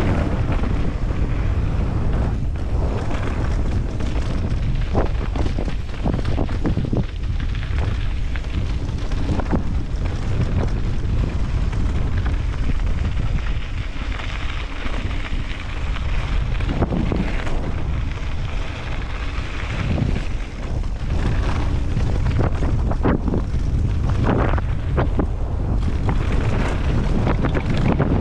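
Heavy wind rush buffeting a helmet camera's microphone as a mountain bike descends a rough dirt trail, with frequent rattles and knocks from the bike going over bumps.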